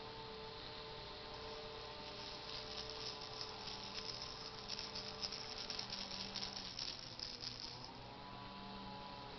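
Plastic baby rattle with beads inside clear balls being shaken: a rapid run of light rattling clicks that starts about two seconds in and stops about a second before the end, over a steady faint hum.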